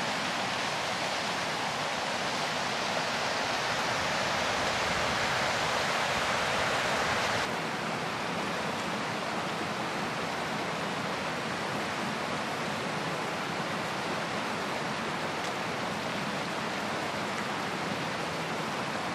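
Steady rush of flowing water, a stream or cascade. It drops suddenly to a slightly quieter, duller rush about seven and a half seconds in.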